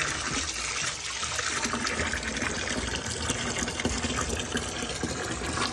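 Tap water running steadily into a bathtub full of bubble bath, splashing into the water.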